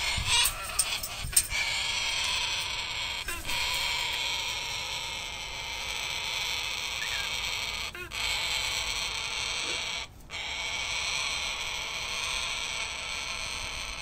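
A parrot screaming almost without pause, a harsh, rasping sound, broken off briefly twice. A few sharp clicks come about a second in.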